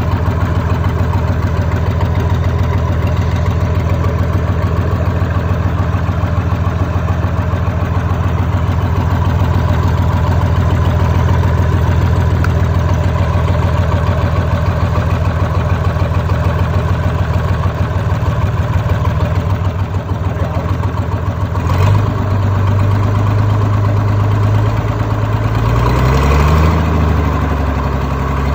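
Isuzu 6BD1 inline-six diesel engine, secondhand and rebuilt, running at a steady idle. About 22 seconds in its pitch steps up, and near the end it revs up and down.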